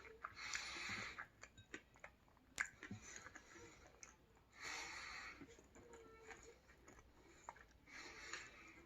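A person chewing sushi close to the microphone: soft, wet mouth sounds with small clicks, and three longer hissing swells that sound like breaths.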